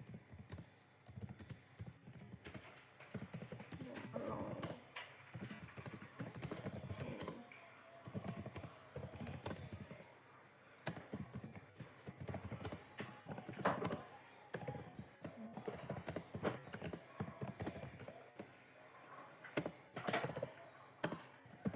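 Typing on a computer keyboard: a steady run of quick, irregular key clicks with short pauses, as text is typed against a one-minute timer.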